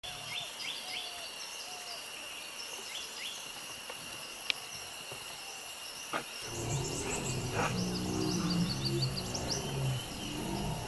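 Tropical forest ambience: a steady high insect drone with short, repeated bird chirps. About six seconds in, soft background music with low held notes joins it.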